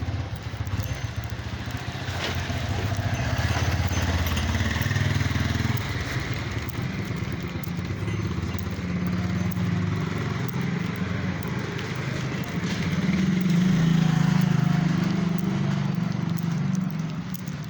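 A motor vehicle engine running close by, its pitch stepping up about six seconds in and loudest shortly before the end.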